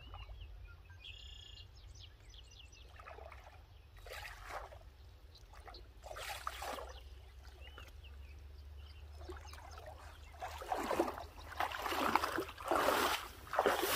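Shallow pond water sloshing and splashing as a person in waders moves through it and wades out through the mud, a few separate swishes at first, then louder, closer-spaced splashing steps in the last few seconds.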